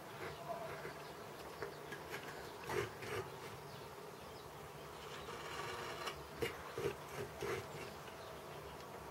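Chip-carving knife cutting into wood: a series of short, crisp cutting strokes and scrapes, with the loudest cuts about three seconds in and again a little after six seconds.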